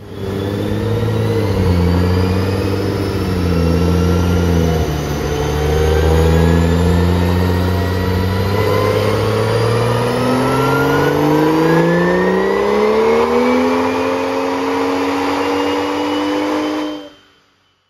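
BMW 335i's turbocharged N55 straight-six making a dyno pull: the engine note holds low and wavers for several seconds, then climbs steadily in pitch under load, with a thin rising whine above it, and cuts off abruptly near the end.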